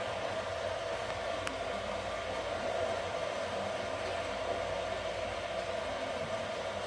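Steady whooshing background noise with a constant hum, like a running appliance, and a faint click about one and a half seconds in.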